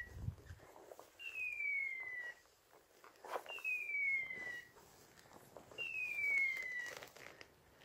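A dog's beeper collar in point mode, repeating an identical falling whistle like a hawk's cry about every two seconds: the signal that the pointer is standing on point. Footsteps rustle through heather and moor grass underneath.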